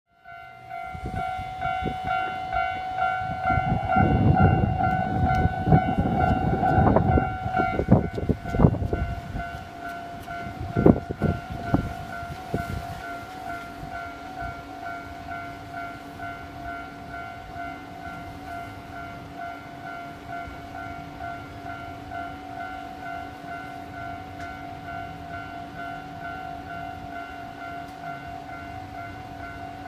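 Japanese level-crossing warning bell ringing in a steady repeating pulse, while a train rumbles over the crossing in the first eight seconds or so. A few loud clacks of wheels over the rail joints follow between about 8 and 12 seconds, after which the bell keeps ringing over a low steady hum.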